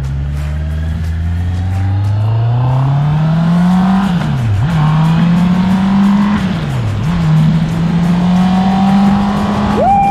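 Honda CB650R's inline-four engine pulling hard under acceleration through first, second and third gear. Its pitch climbs steadily, drops sharply at each of two upshifts, about four and a half and seven seconds in, then holds high.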